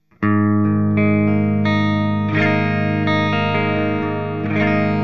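Electric guitar on a clean amp channel, played through an Earthquaker Devices Space Spiral modulation delay pedal: a chord struck about a quarter second in and left ringing, with fresh strums around the middle and near the end.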